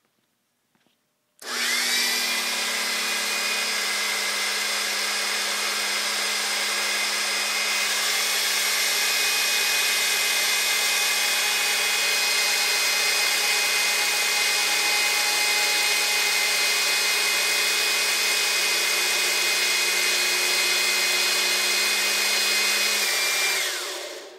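The 10,000 psi hydraulic power unit of an OTC 100-ton gear puller running steadily, driving the puller's ram out. It starts abruptly with a short rising whine about a second and a half in, and winds down near the end.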